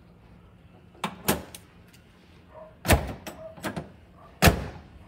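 Hood of a 2000 Volkswagen New Beetle being pressed down and latched shut: a few light knocks, then two heavy thumps about a second and a half apart.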